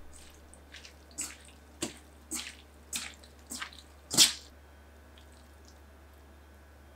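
Hands squeezing and tossing juicy, salted daikon slices with yuzu zest in a stainless steel bowl: about seven short, wet squelches over four seconds, the last one the loudest.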